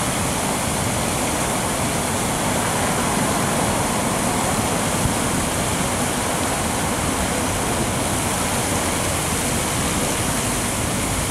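Water from a large fountain's jets and spouts splashing into its basin: a steady, even rush.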